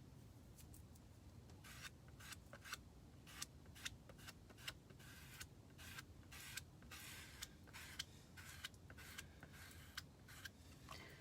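Faint, short, irregular scraping strokes of a small squeegee dragging paste across a silk-screen stencil.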